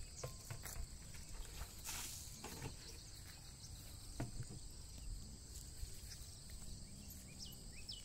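Faint steady chirring of insects, with a few soft clicks and rustles about two seconds in and again around four seconds.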